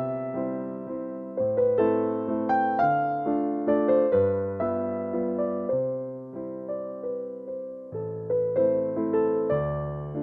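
Solo piano music: gentle notes struck one after another, each ringing and fading.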